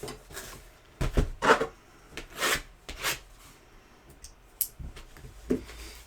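Trading card packs and cards being handled on a table: several short rustling, scraping swishes of wrappers and card stock, then a few light clicks and taps near the end.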